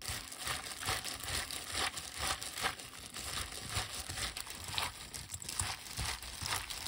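Gloved hands tossing fresh miyeok seaweed with sesame seeds and sesame oil in a stainless steel bowl: a steady, irregular run of wet squishes and the crinkle of thin plastic gloves.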